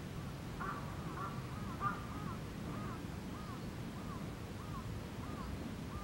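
A crow cawing in a long series of short calls, busier and louder in the first two seconds, then evenly spaced at about one and a half calls a second, over a low steady rumble.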